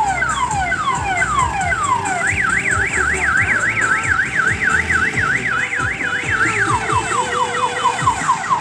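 Electronic multi-tone siren cycling through its patterns: repeated falling sweeps, then a fast up-and-down warble about four times a second for roughly four seconds, then falling sweeps again. A low diesel engine rumble runs underneath.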